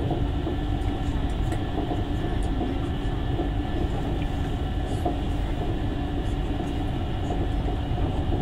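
Cabin noise inside a high-speed train running at speed: a steady low rumble with a faint even hum.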